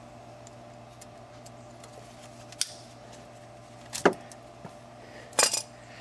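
Metal clicks and clacks of brake pads and caliper hardware being handled and seated on a 2014 Ram 1500's front brake caliper: a light click about two and a half seconds in, a sharper one around four seconds, and a loud double clack near the end, over a faint steady hum.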